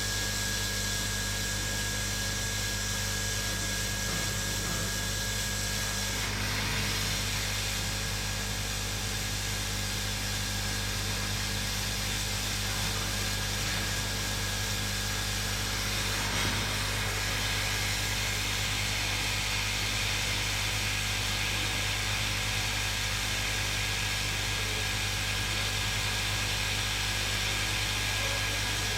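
Hot air rework station blowing steadily, heating the board so the solder under the glued chip melts while the underfill is scraped off. A thin whine under the airflow stops about six seconds in.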